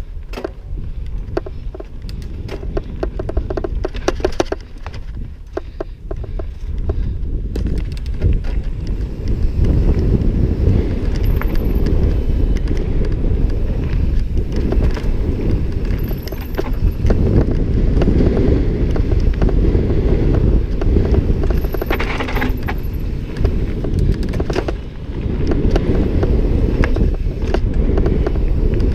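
Mountain bike rolling fast down a dirt trail: wind rumbling on the helmet camera's microphone under a steady tyre noise, with the chain and frame rattling and clicking over the bumps.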